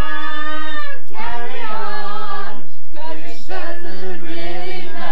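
A small group of voices singing a cappella in harmony, holding long notes that glide between pitches.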